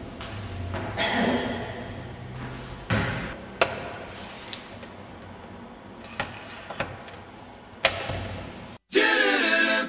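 Sharp clicks and knocks of a portable transistor radio being handled on a wooden floor, its top button pressed near the end. Then, after a brief cut, vocal music with singing starts abruptly and loudly.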